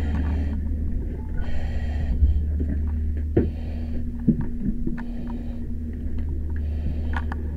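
Firefighter breathing through an SCBA mask regulator: a hiss with each breath, returning every two to three seconds, over a steady low rumble and a few scattered clicks and knocks of gear.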